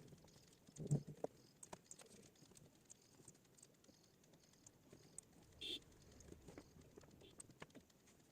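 Faint, scattered clicks and taps, with one louder knock about a second in and a short hiss near the end.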